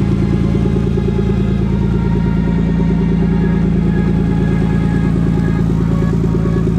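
A vehicle engine idling steadily, a loud, even low hum with a fast regular pulse.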